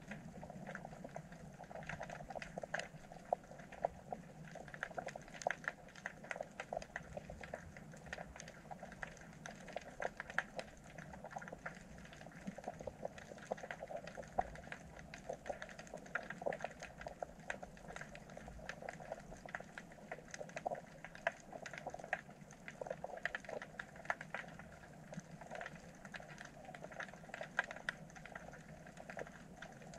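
Underwater ambience: a steady crackle of many small, irregular clicks and pops over a low, even hiss.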